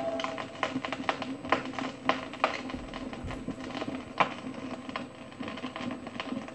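Vinyl record surface noise on a turntable: soft crackle and irregular sharp clicks with a faint steady low hum, the music having faded out just as it begins. It is the quiet end of the record.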